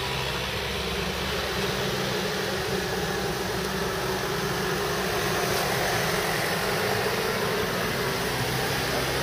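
Engines of ambulance vans running as the vans pull away and drive past at low speed, a steady engine sound under an even hiss.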